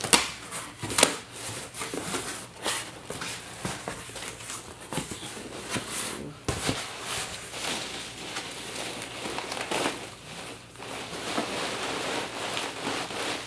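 A cardboard shipping box being opened by hand: packing material rustling and crinkling in irregular handling strokes, with two sharp, loud noises about a second apart at the start.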